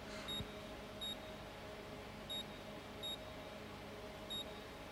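Short, high electronic beeps from a bedside monitor, coming in pairs about three-quarters of a second apart, a pair every two seconds or so, five beeps in all. A faint, low, steady hum runs under them.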